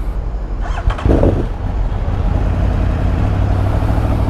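Superbike engine running steadily as the bike rides off, a steady low drone.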